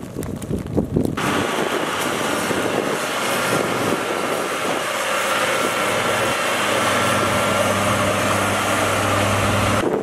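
Caterpillar motor grader's diesel engine running steadily while it ploughs snow, with a dense hiss of blade and snow. Before it, for about a second at the start, wind gusts on the microphone.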